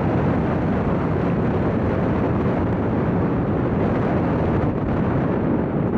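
Steady rumble and rush of a CityCat ferry under way, heard from on board, with wind on the microphone.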